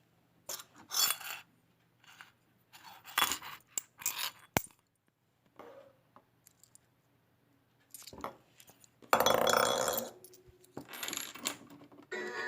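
Coins clinking and dropping into a toy mini claw machine, heard as scattered short clicks and rattles, with a louder rattle lasting about a second about nine seconds in.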